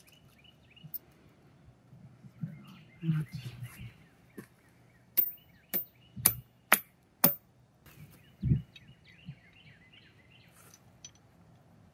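Five sharp metal-on-metal hammer blows about half a second apart, a short sledgehammer driving a concrete anchor into a drilled hole in a rammed-earth pillar, followed about a second later by a dull thump. Birds chirp throughout.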